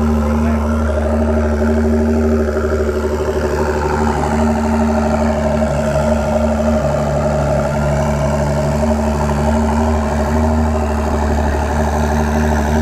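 An engine idling steadily: a continuous low hum with no revving.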